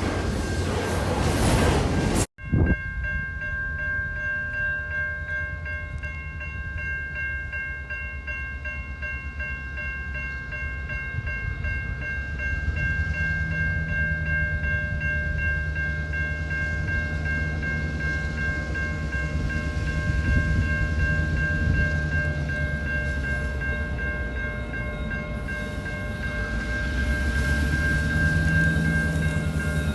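A train at close range: a steady low rumble with several high ringing tones held throughout. The sound cuts off suddenly about two seconds in and restarts.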